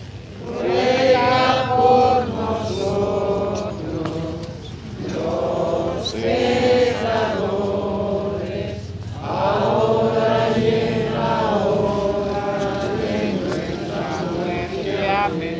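A crowd of procession participants singing a hymn together in unison, in phrases a few seconds long with short breaks between.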